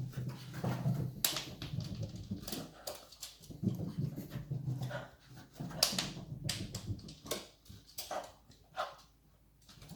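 Boston terrier making excited low whining and grunting noises, mixed with repeated sharp clicks and knocks as it moves about.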